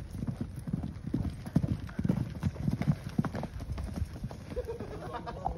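Hoofbeats of two horses moving at speed over grass and dirt: a quick, irregular clip-clop of hooves, loudest in the middle as they pass close by.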